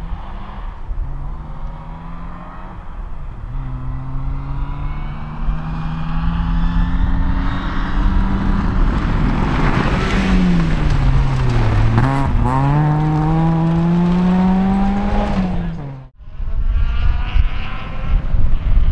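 Rally car engine at full throttle on a gravel stage, its pitch climbing in steps through the gear changes. About ten seconds in the pitch drops as the car slows, then climbs again as it accelerates past. About sixteen seconds in the sound cuts off abruptly and a second rally car's engine is heard.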